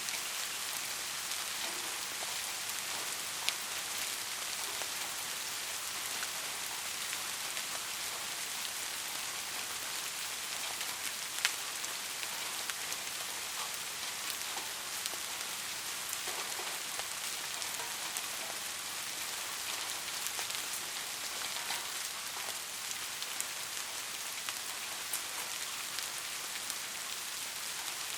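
Steady rain falling, an even hiss with scattered drops ticking and a couple of sharper drop hits.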